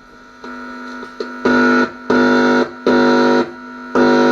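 Amplifier speaker putting out a loud, distorted buzzing tone of one steady pitch, swelling four times into bursts of about half a second with a quieter hum between. It shows the repaired amp, its broken potentiometers replaced, now passing sound.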